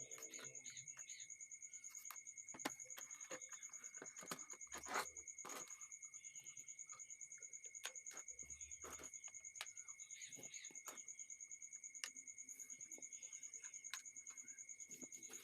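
Faint scattered clicks and knocks from handling the plastic and metal parts of an induction stove during reassembly, the sharpest about 2.7 s and 5 s in, over a steady high-pitched chirring in the background.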